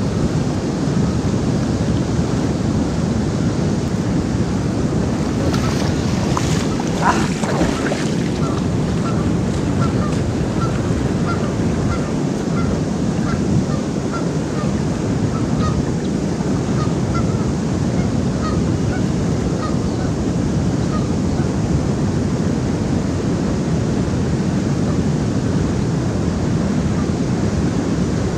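Steady rush of river water pouring over a low weir, with some wind on the microphone. About seven seconds in comes a brief louder sound, followed for about twelve seconds by a string of faint, short high notes, roughly two a second.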